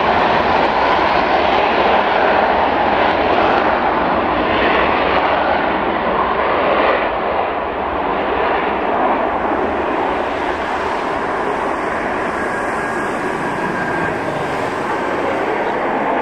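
Eurofighter Typhoon's twin Eurojet EJ200 turbofans at takeoff power during the takeoff roll and climb-out: loud, steady jet noise that eases a little about seven seconds in as the jet lifts off and pulls away.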